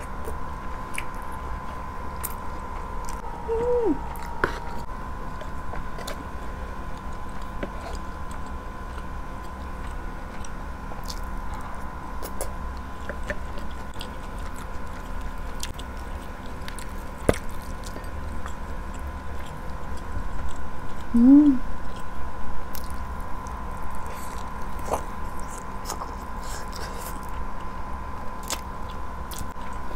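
Close-miked chewing and biting of mouthfuls of rice and grilled chicken, with small wet clicks from the mouth and utensils. There are two short hummed voice sounds, about 4 s and 21 s in, over a steady faint hum.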